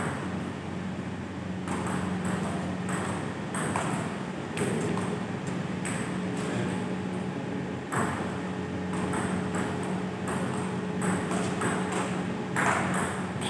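Table tennis rally: the ball clicks back and forth off the bats and the table in quick, irregular succession, over a steady low hum.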